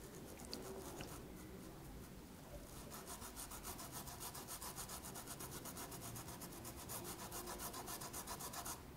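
Small paintbrush rubbing fabric paint into cloth: a faint scratchy brushing that settles into quick, even back-and-forth strokes, several a second, about three seconds in, and stops just before the end.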